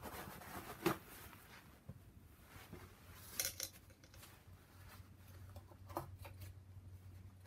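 Small metal clicks and clinks of hand tools and engine parts as a turbocharger coolant line is worked loose: one sharp click about a second in, a short cluster around the middle and another click near six seconds. A faint low hum comes in about halfway.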